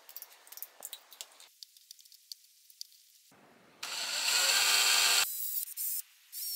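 Cordless drill running steadily for about a second and a half, starting about four seconds in, as it drills out a screw hole in a 3D-printed plastic A-arm. Light clicks of the part being handled come before and after.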